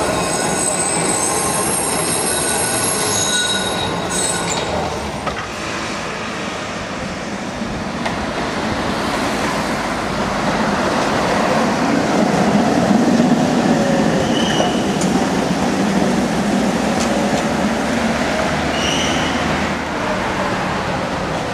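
Milan street trams running on city tracks: a high wheel squeal on a curve for the first four seconds or so, then the rumble of a passing tram with two short squeals later on.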